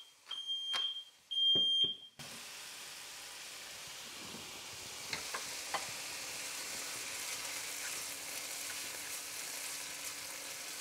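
A smoke alarm, set off by cooking smoke, beeps high and even about once a second for the first two seconds, over the clicks of a wooden pepper mill grinding. The beeping then stops, and shredded potatoes and leek sizzle steadily in butter and oil in a frying pan, stirred with a spatula near the end.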